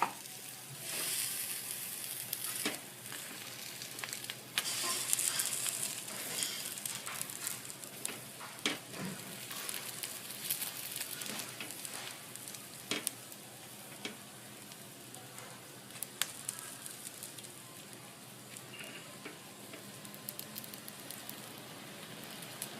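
Pav buns frying in oil in a hot pan: a steady sizzle, broken by scattered short, sharp clicks.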